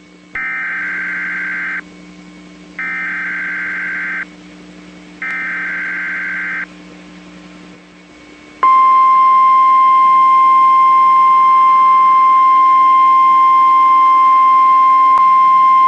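NOAA Weather Radio Emergency Alert System tones: three short bursts of buzzy SAME digital header data, each about a second and a half long with pauses between, then about nine seconds in the steady single-pitch warning alarm tone starts and holds. The sequence announces an emergency warning message about to be read.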